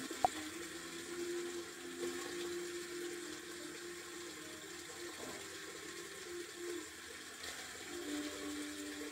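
Water running steadily from a tap, with faint background jazz music underneath.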